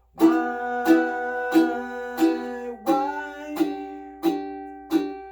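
Makala ukulele with a mahogany back and agathis top, strummed in a steady rhythm of about three strums every two seconds, changing chord about three seconds in.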